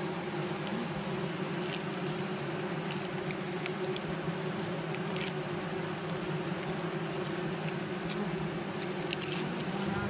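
Honeybees buzzing in a steady hum over the open top bars of a Langstroth hive, a newly installed package colony. A few faint clicks are heard among the hum.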